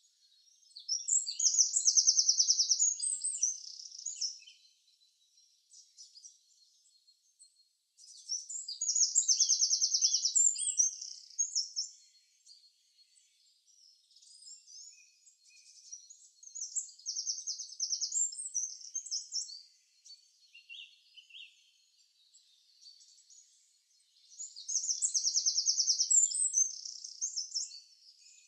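A songbird singing the same high song four times, about eight seconds apart. Each song is a rapid trill of two to three seconds ending in a few sharper notes, with faint chirps in between.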